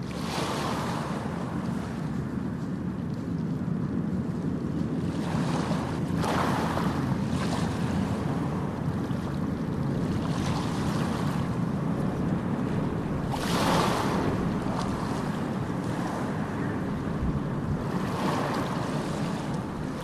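Ocean surf on a beach: a steady low rumble of waves with about four louder hissing washes as waves break and run up, the loudest a little past halfway.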